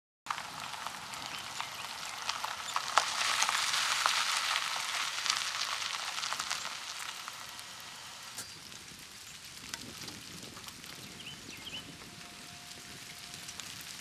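Car tyres crackling and popping over gravel as a Buick LeSabre rolls up to a farm gate. The crackle swells about three to five seconds in, then fades to a lower hiss.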